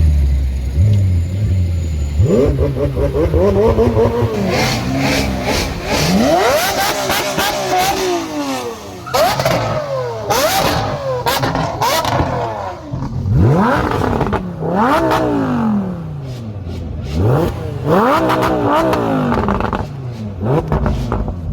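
A vehicle engine pulls hard through several gears, its pitch climbing steeply and then dropping back at each shift, after a low rumble in the first couple of seconds. Sharp cracks are scattered among the pulls.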